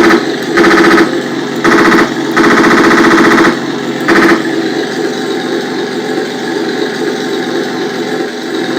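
RC tank sound unit playing the Tiger 1's hull machine gun effect through its speaker: four short rapid-fire bursts, the third the longest at about a second, over the steady idling engine sound. The engine idle runs on alone for the second half.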